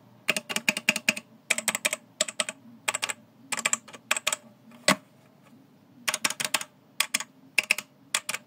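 Typing on a Blueforce Majesty 60% mechanical keyboard with red linear switches: quick bursts of keystrokes separated by short pauses, with one louder single keystroke about five seconds in.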